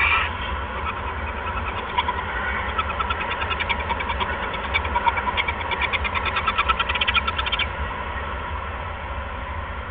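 Barn owl bent over a rat, making a fast, even run of clicking sounds that starts about two seconds in and stops suddenly near the end. A short sharp sound comes at the very start, and a steady low electrical hum runs underneath.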